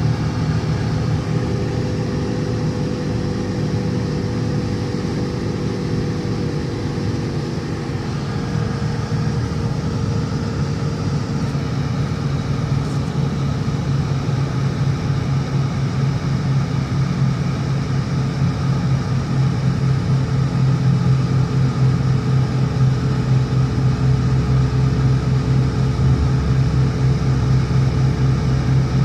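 Car driving, with a steady engine drone and tyre and road noise that grow a little louder partway through.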